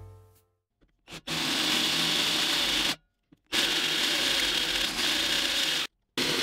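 Electric drill boring into steel plate, the bit cutting and throwing chips, in three stretches that each start and stop abruptly.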